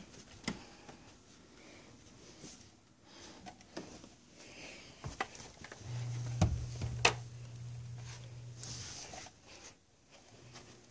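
Dwarf hamster's plastic exercise ball rolling across the floor, with scattered sharp knocks and clicks, the loudest two close together a little past the middle. A low steady hum comes in for about three seconds midway.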